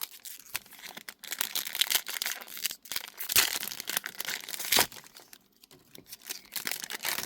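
Foil trading-card pack wrapper crinkling and tearing as it is opened by hand: an irregular run of crackles and rips.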